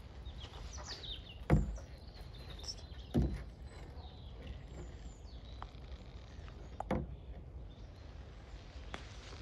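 A kayak being paddled: three dull knocks from the paddle and hull, about a second and a half in, about three seconds in and near the seven-second mark, with birds chirping faintly in the background.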